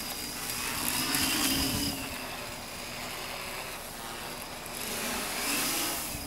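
Quadcopter's electric motors and propellers whining as it hovers and manoeuvres, the pitch rising and falling with throttle changes. It swells louder about a second in and again near the end.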